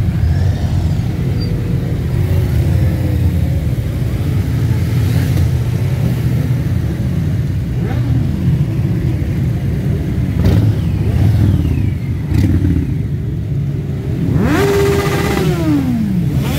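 Many motorcycle engines running together as a slow procession of bikes passes close by, a steady low rumble with riders blipping their throttles now and then. Near the end one bike revs up sharply, holds briefly and falls back.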